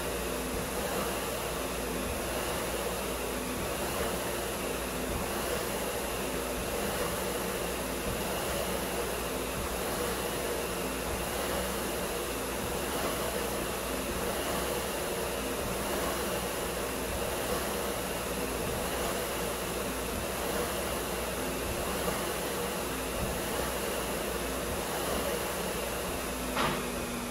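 Concept2 SkiErg's air-resistance flywheel whirring steadily, the whoosh rising and falling with each pull of the handles. A sharp knock near the end.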